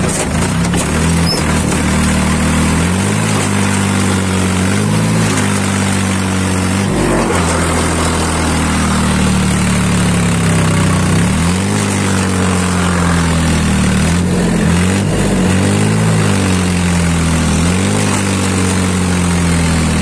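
Tractor engine running hard in reverse while pulling on a chain to uproot a walnut tree, its speed sagging and picking back up several times under the load.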